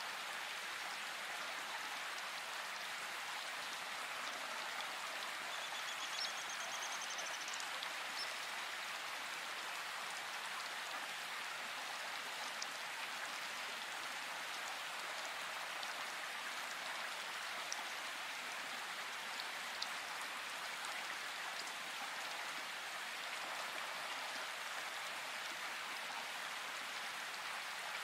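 Steady rain falling: a continuous even hiss of raindrops with a few faint drip ticks, and a brief faint high trill about six seconds in.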